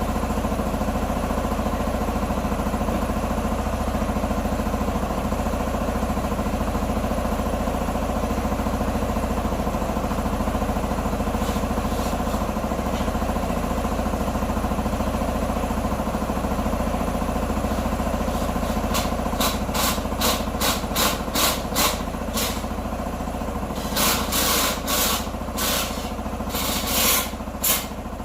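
Small motorcycle engine idling steadily. Over the last ten seconds a run of short sharp clicks and rattles sits on top of it.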